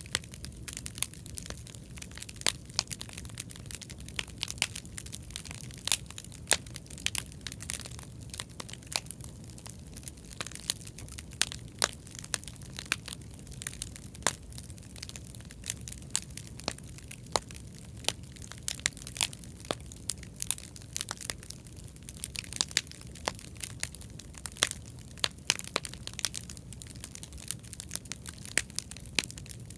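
Bonfire of stacked scrap lumber burning: frequent, irregular sharp crackles and pops over a steady low rush.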